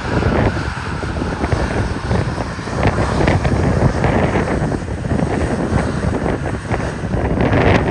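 Jet airliner departing at takeoff power, its engines making a steady rumble, mixed with wind buffeting the microphone.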